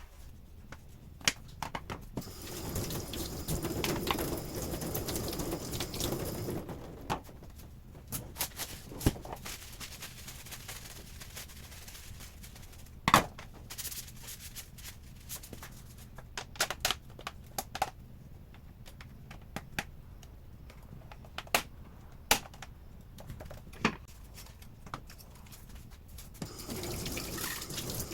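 Tap water running into a sink twice, first for about four seconds and again near the end, with scattered knocks and clinks of things being handled.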